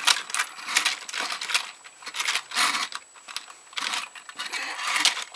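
Irregular light clicks and rattles of small plastic parts: an N gauge battery toy train being handled and its wheels fitted onto plastic track.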